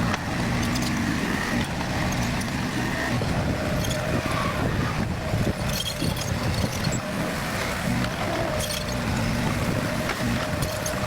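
Heavy diesel construction machinery running steadily under load, with occasional short metallic knocks.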